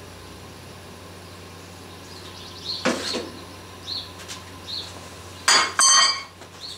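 Metal casting ladle knocking and clanking against metal, emptied after a pour of molten lead: a sharp knock about three seconds in, a few light clinks, then two loud ringing clanks near the end. A steady low hum runs underneath.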